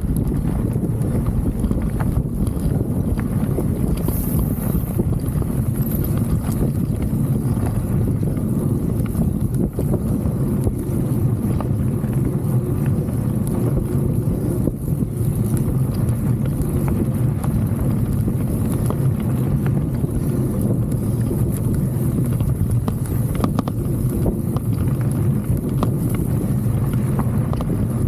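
Mountain bike rolling over a bumpy grass trail: a steady low rumble with constant rattling and knocking from a handlebar camera on a loose mount, and wind on the microphone.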